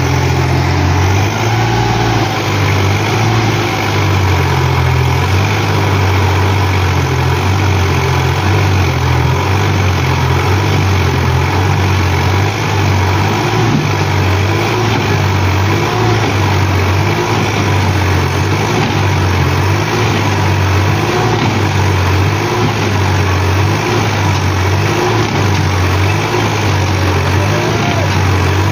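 Tractor diesel engine running steadily under heavy load, its trolley so fully loaded that the tractor's front wheels are lifted off the ground.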